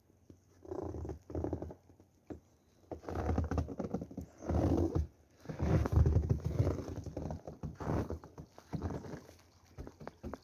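Footsteps crunching in snow, an irregular series of crunches, some close and loud.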